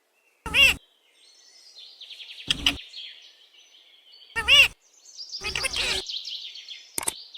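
A pet parrot calling: two loud, short calls about four seconds apart, with rapid high-pitched chirping chatter between and after them.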